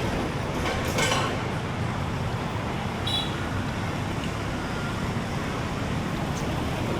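Steady road traffic noise, an even rumble of passing vehicles, with a short snatch of a voice about a second in and a brief high chirp about three seconds in.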